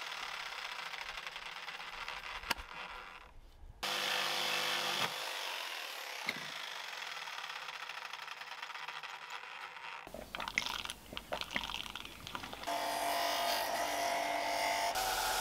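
Mostly a faint even hiss, then a few light knocks and clicks from handling a wooden block. In the last couple of seconds a bench belt sander starts running with a steady motor hum.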